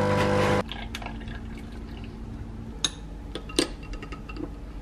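De'Longhi Dolce Gusto capsule coffee machine's pump buzzing as it dispenses coffee into a glass. The buzz cuts off abruptly about half a second in. A few light clinks follow as a metal straw stirs iced coffee in the glass.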